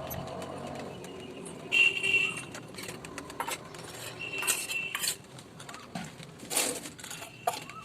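Small metal utensils clinking and knocking as they are handled and set down, several of the knocks followed by a short high ring.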